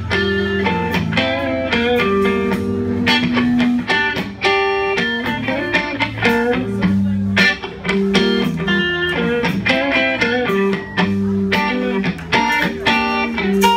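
A live band playing an instrumental intro: electric guitar notes over bass guitar and drums.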